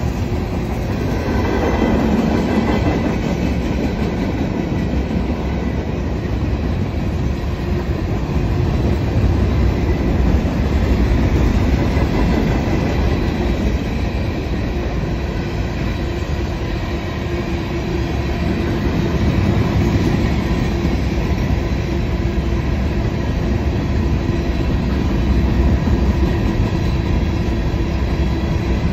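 Freight cars of a Norfolk Southern manifest train, mostly covered hoppers, rolling steadily past. Steel wheels on rail make a continuous rumble, with clacking over the rail joints.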